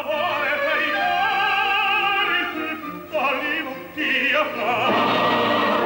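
Operatic singing: a voice holding long notes with wide vibrato over classical accompaniment, the phrase breaking off and resuming about three and four seconds in.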